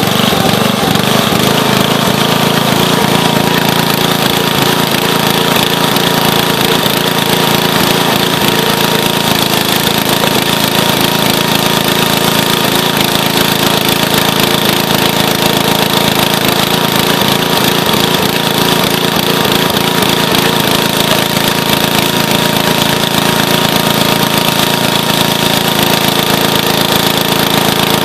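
Small gasoline engine of a towable log splitter running steadily, powering the hydraulic pump while logs are split.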